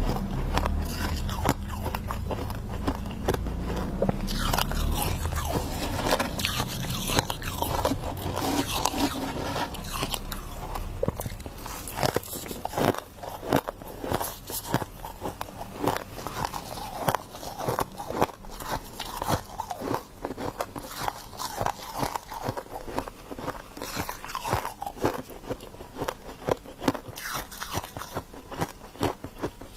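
Close-up chewing and crunching of a mouthful of frost: dense, crisp crunches that thin out about halfway through into separate, distinct bites and chews.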